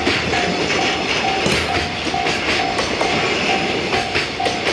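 JR Freight container flatcars rolling past close by, wheels clattering over rail joints with a steady rumble. A thin beeping tone repeats about twice a second behind it.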